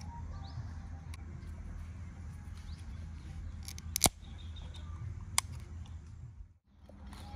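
Aluminium drink can's pull tab cracked open: a sharp pop about four seconds in, followed a second or so later by a lighter click of the tab.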